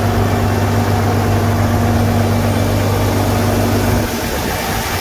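Large diesel tractor engine idling steadily with a low hum. About four seconds in, the deepest part of the hum drops out and the sound turns rougher and a little quieter.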